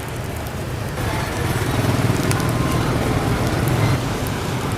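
Street traffic noise with engines running past, a steady low rumble that swells in the middle.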